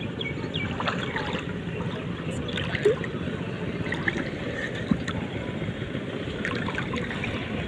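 Steady water-and-boat noise with a few faint clicks, and two short knocks about three and five seconds in.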